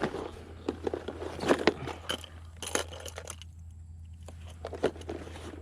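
Irregular small clicks and clinks, dense for about three and a half seconds and then sparser.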